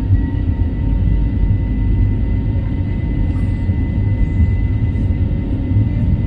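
Cabin noise of an Airbus A320-family airliner climbing after takeoff: a loud, steady rumble of the jet engines and airflow, with a faint steady whine from the engines.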